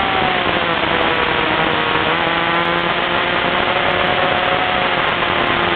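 Motorcycle engine heard on board at speed under heavy wind rush. The engine note falls over the first two seconds as the bike slows for a corner, then holds and rises slightly near the end as it drives through the turn.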